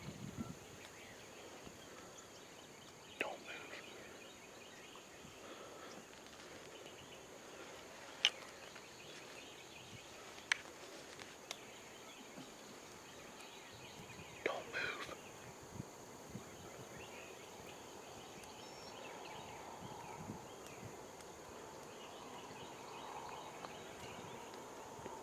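Quiet pasture background with a few sharp clicks and one brief rattling gobble from a wild turkey gobbler about halfway through.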